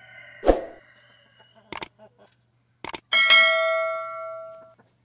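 YouTube subscribe-button animation sound effects: a pop about half a second in, clicks near two and three seconds in, then a bell ding that rings out and fades over about a second and a half.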